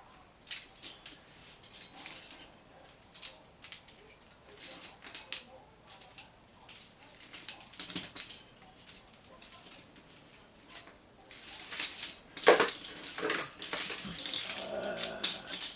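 Climbing cams and carabiners clinking and rattling as they are handled and clipped onto a harness gear loop: irregular metal clicks and jingles, busier near the end.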